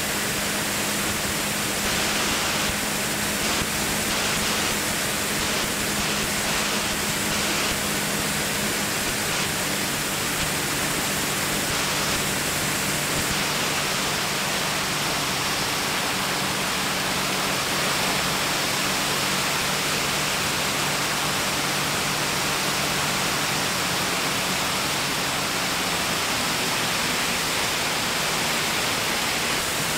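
Steady rushing noise of airflow in flight, with a low, even drone underneath that wavers slightly in pitch.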